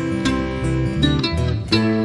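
Acoustic string band playing an instrumental break between verses: mandolin and acoustic guitars, picked and strummed.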